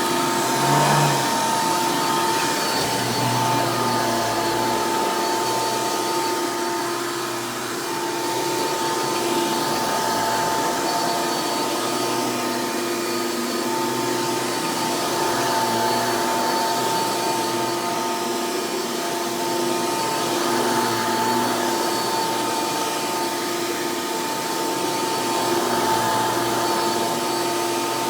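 Hoover Elite upright vacuum cleaner running steadily, a pretty loud motor whine with a high, held tone over a rushing air noise.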